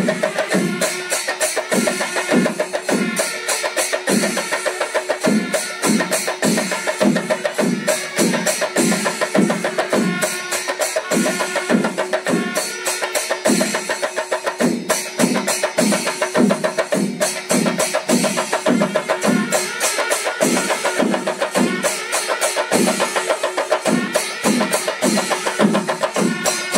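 Chenda melam, the Kerala temple ensemble of chenda drums and ilathalam cymbals, playing a steady beat: regular deep strokes, somewhat more than one a second, under dense, fast drum and cymbal clatter.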